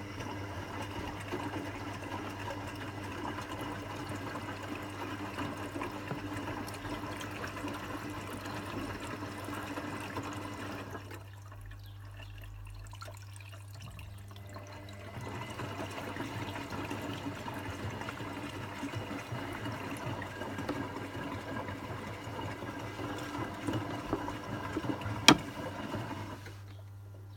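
Zanussi ZWC 1301 washing machine filling with water during its final rinse: a steady rush of water pouring in over a constant low hum. The rushing drops away for a few seconds about eleven seconds in and then resumes, and a single sharp click sounds near the end.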